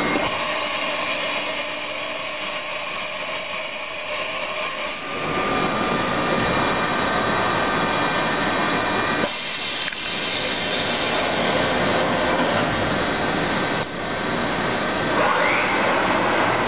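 SANCO SM-3000G double-column CNC machining center running, a steady mechanical noise with a high whine over the first five seconds. The sound shifts abruptly about five, nine and fourteen seconds in, and a short rising tone comes near the end.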